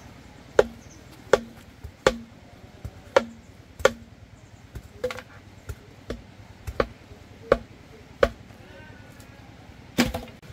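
Repeated chopping with a blade, about one strike every three-quarters of a second: firm strikes at first, lighter ones in the middle, and one heavy strike near the end.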